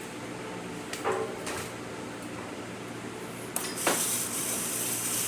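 Breville Oracle espresso machine's steam wand: a few clinks and knocks, then about three and a half seconds in the steam comes on with a sudden, loud hiss that keeps going steadily.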